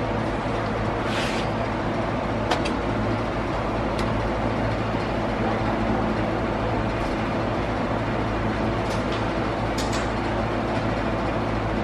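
Steady droning background noise with a low hum, with a few light clicks and taps from handling the tablet.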